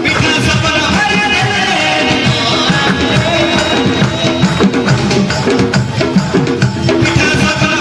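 Koraputia folk music: a quick, busy drum and percussion rhythm under a melody of held notes.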